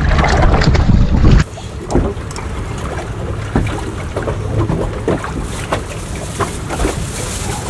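Wind rumbling on the microphone aboard a small boat, cut off suddenly about a second and a half in. After that comes a quieter steady low hum with scattered light clicks and knocks.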